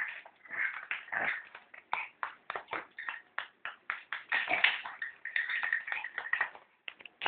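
Ping pong balls clicking and bouncing on a tile floor as a small dog noses and bats them: a quick, uneven run of sharp taps, bunched into fast rattles in places.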